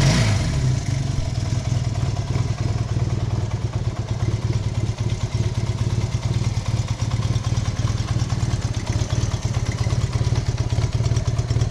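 1972 Honda CB175's parallel-twin engine idling steadily, still cold just after a cold start.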